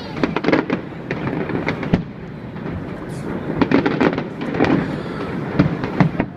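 Fireworks shells bursting in quick, irregular clusters of sharp bangs and crackles, with a brief lull near the middle.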